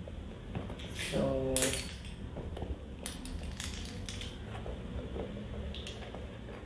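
Makeup brushes and a fabric zip pouch being handled on a tiled floor: a short rasp with a buzz about a second in, then light clicks and clatter of brush handles knocking together as they are put into the pouch.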